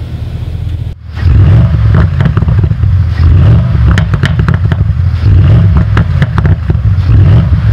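Bentley Continental GT V8's twin-turbo 4.0-litre V8 revved at a standstill through an active-valve sport exhaust with the valves open in Sport mode. After a brief dip about a second in it runs loud and deep, with repeated crackles and pops from the exhaust.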